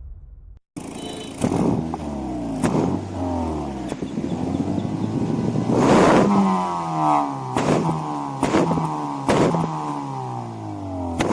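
Modified Honda Civic's 1.8 i-VTEC four-cylinder engine revving up and falling back again and again, with several sharp cracks between the revs.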